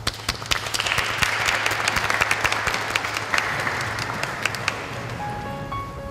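A crowd of guests applauding, the clapping coming in at once, holding, then dying away about five seconds in. Soft musical notes begin near the end.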